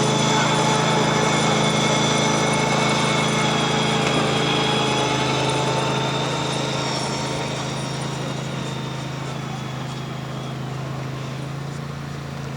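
A small engine running steadily, its pitch drifting slightly, growing gradually fainter over the second half.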